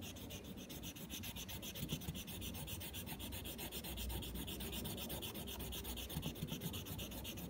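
A colour pencil shading back and forth across a paper worksheet: a quiet, steady scratchy rubbing.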